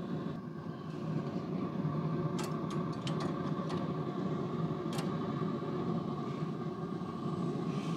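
Steady hum of a running Recteq pellet smoker, with a quick run of metal clicks and clinks a couple of seconds in and one more about five seconds in as the rotisserie spit is worked into its bracket.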